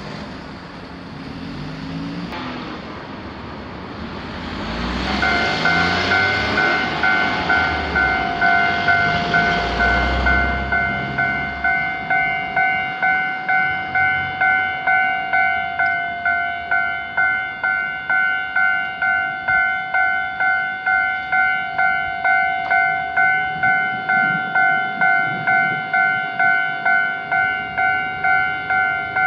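A train rumbles past for roughly the first ten seconds. About five seconds in, a Japanese railroad crossing's warning bell starts ringing, an evenly repeated ding about twice a second that keeps going after the train noise fades.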